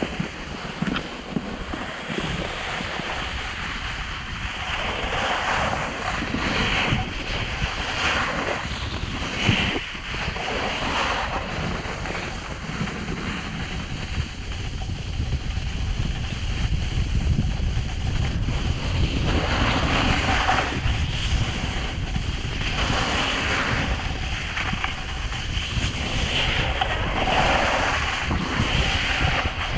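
Wind buffeting a GoPro's microphone while a snowboard slides over snow, its edges scraping in repeated swells of hiss every few seconds as the rider turns. The low wind rumble grows stronger in the second half.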